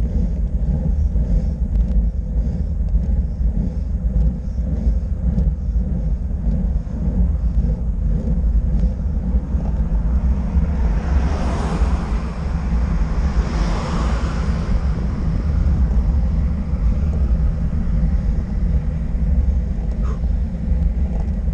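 Steady low wind rumble on the microphone with road noise while travelling along the road. About halfway through, a rush of noise swells and fades over several seconds.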